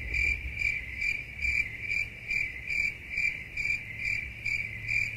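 Insect chirping: a steady high trill that pulses a little over twice a second, with a low steady hum beneath.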